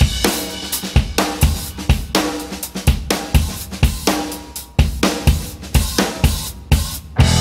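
Background music with a steady drum-kit beat of snare, hi-hat and bass drum under sustained instrumental notes.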